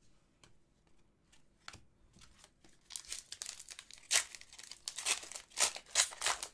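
Hockey card pack wrapper being handled and torn open: a few light clicks and rustles at first, then from about three seconds in a dense run of crinkling and tearing with several louder rips.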